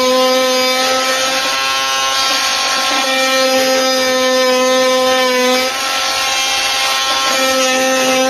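Cordless oscillating multi-tool running at speed with a steady, high-pitched buzz. The buzz eases slightly a little past halfway and then carries on.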